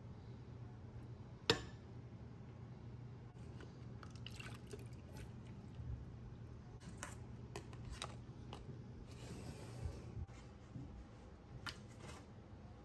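Faint kitchen handling sounds over a low steady hum: a sharp click about a second and a half in, then scattered light knocks and clinks, with a short stretch of liquid dripping or pouring about nine seconds in.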